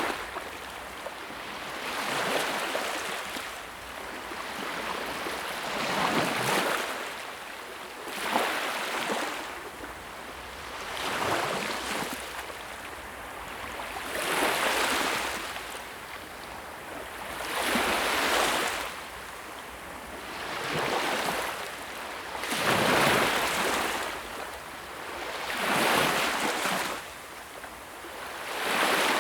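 Sea waves breaking and washing on a shore, about ten surges at an uneven spacing of roughly three seconds, each swelling and then fading back.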